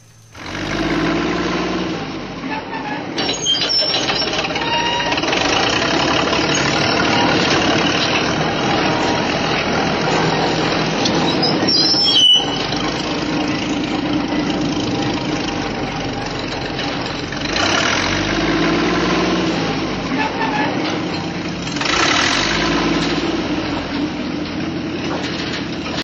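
Caterpillar tracked excavator's diesel engine running steadily. The engine swells louder twice near the end, and there is one short sharp knock about twelve seconds in.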